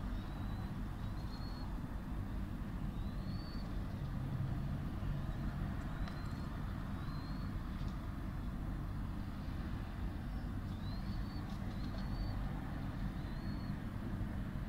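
Steady low rumble of road traffic, with about nine faint, short, high chirps that rise in pitch, scattered through from a small bird.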